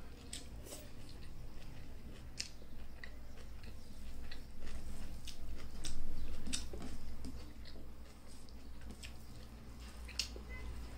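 Close-up chewing and wet mouth clicks of a person eating rice and greens by hand, with short irregular clicks throughout, louder for a few seconds in the middle.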